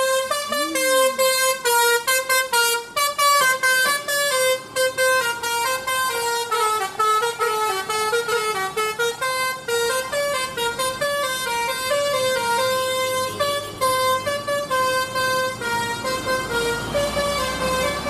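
Bus's Basuri telolet musical horn, with roof-mounted trumpets, playing a tune: a quick run of short notes, then longer held notes stepping up and down in a melody.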